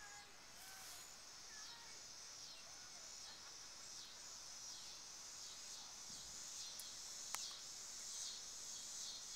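Faint outdoor insect chorus: a high buzzing that swells and fades about one and a half times a second, with a few faint bird chirps in the first two seconds and a single sharp click about seven seconds in.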